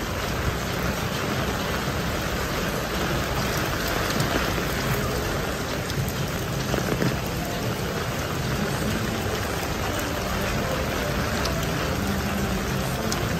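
Heavy rain falling steadily and splashing on wet street paving.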